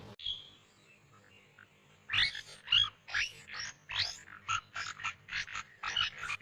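Jungle animal calls: after a quiet first two seconds, a quick run of short, rising chirping calls, about two or three a second.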